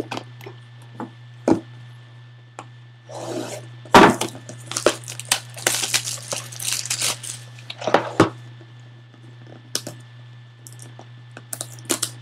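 Plastic wrap being torn and crinkled off a sealed cardboard trading-card hobby box, with knocks and rubbing as the box is handled; the sharpest knock comes about four seconds in.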